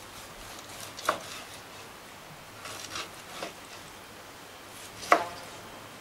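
A sharp knife cutting slices off a grilled rib-eye steak, the blade knocking on a white plastic cutting board as each cut goes through: a sharp knock about a second in, two softer ones around three seconds, and the loudest near the end.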